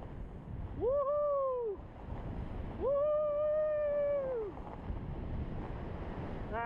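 A person's voice giving two drawn-out, high-pitched whoops: a short one about a second in and a longer held one from about three seconds in, each rising at the start and falling away at the end. Underneath runs a steady hiss of sliding over snow and wind.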